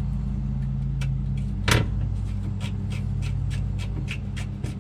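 Steady low drone of large commercial lawnmower engines running. About two seconds in, a single sharp clunk of the steel tow hook being worked into its mount on the pickup's frame, followed by a run of light ticks.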